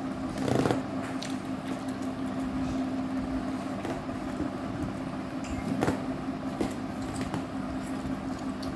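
Eating sounds: chewing, and fingers squishing rice on a plate, over a steady low hum. There are two brief knocks, about half a second in and again about six seconds in.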